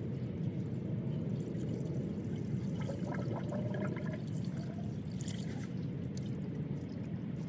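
Antifreeze pouring in a steady stream from a plastic jug into a car's coolant filler neck, filling the cooling system after a radiator replacement.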